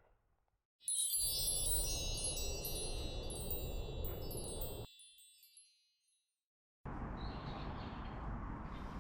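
A cluster of high chime tones starts suddenly about a second in and rings out, fading over about four seconds over a steady low noise. It cuts off abruptly near the middle, followed by about two seconds of silence and then a steady noise.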